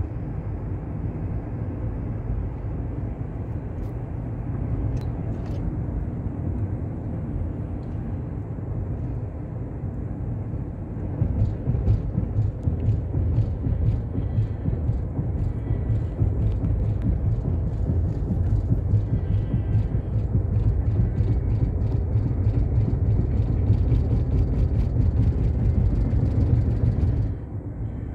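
Road noise heard from inside a moving car's cabin: a steady low rumble of tyres and engine. It grows louder about eleven seconds in and drops off just before the end, with faint light ticks over it.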